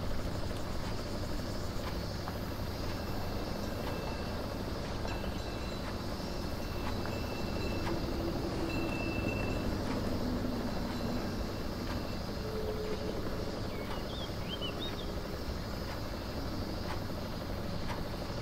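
Steady low rumble of background ambience, with a few faint light clicks and a few brief high chirps about three-quarters of the way through.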